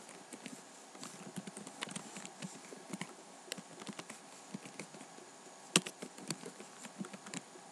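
Typing on a computer keyboard: quick, irregular key clicks, with one sharper click nearly six seconds in.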